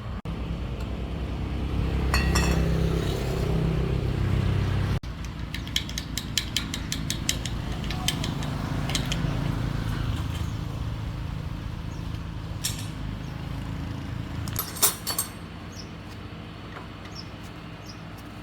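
Metal parts and tools clinking and tapping during machine repair work, over a steady low motor hum. There are rapid clicks a few seconds in and a couple of sharper knocks near the end.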